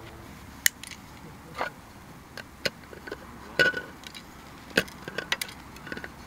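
Hands handling a small Goal Zero–style LED lantern, fitting its shade and mounting it on a mini tripod: a string of sharp, irregular clicks and knocks of plastic and metal parts, about eight in all.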